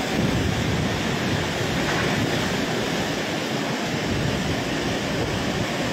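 Steady noise of strong typhoon winds and torrential rain, unbroken and even in level, heaviest in the low range.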